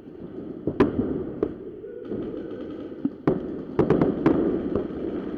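Paintball markers firing sharp, scattered pops: a single shot about a second in, then a quick string of four or five shots around three to four seconds in.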